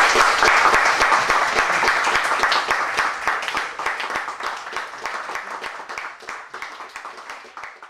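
Audience applauding, the clapping loud at first, then thinning out and fading over the last few seconds.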